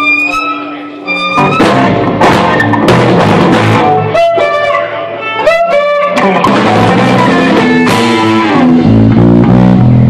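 Live band playing an instrumental passage: violin with slides between notes near the middle, over electric guitars and a drum kit.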